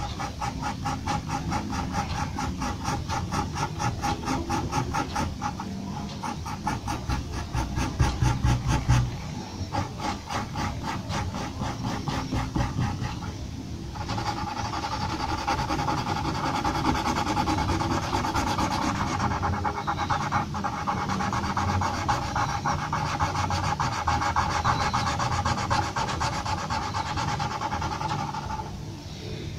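Graphite pencil scratching on drawing paper in quick, regular hatching strokes, several a second. From about halfway it turns into a steadier, denser shading rasp. A low thump about eight seconds in is the loudest moment.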